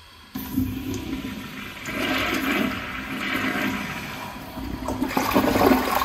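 Toilet flushing through a chrome flushometer valve: water rushes into the bowl starting suddenly about a third of a second in, and keeps going, loudest near the end.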